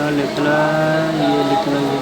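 A man humming, with long held, gently sliding notes.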